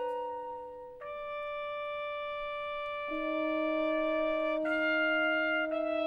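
Live chamber ensemble of woodwinds and brass, tuba included, playing long sustained notes. A held chord fades away, then new long notes enter about a second in, a lower note joins around three seconds, and another voice enters near five seconds.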